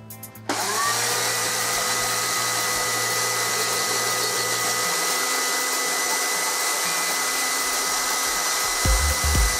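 Electric chainsaw switched on about half a second in. Its motor spins up quickly to a steady high whine over the rattle of the chain, and it holds constant speed.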